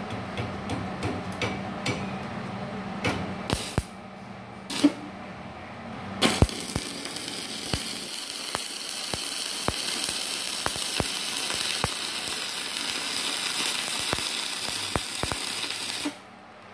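Stick (MMA) welding arc from a Multipro MMAG 600 inverter welder set near its 300-amp output maximum. A few short crackling arc strikes in the first seconds, then a steady hissing, crackling arc from about six seconds in that cuts off suddenly near the end.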